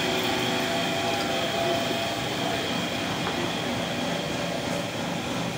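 Electric meat band saw running steadily, its blade cutting through a large catla carp, with a steady high whine over the machine noise.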